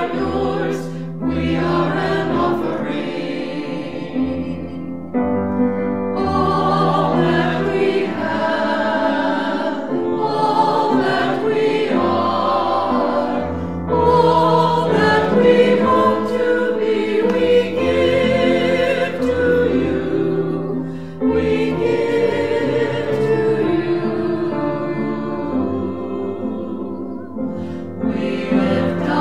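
Background music: a choir singing sustained, wavering notes.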